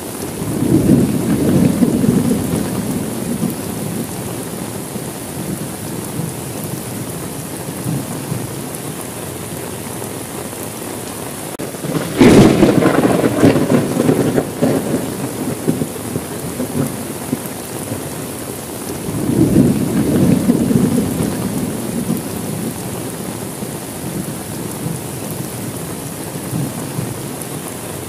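Steady heavy rain, with thunder three times: a low rumble in the first few seconds, a sharp crack about twelve seconds in that rolls on for a few seconds and is the loudest, and another low rumble about twenty seconds in.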